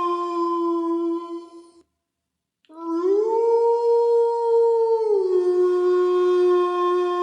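Wolf howling: a long, even howl fades out under two seconds in, then after a short silence a new howl starts, rises in pitch, holds, and drops back about five seconds in to a steady lower note.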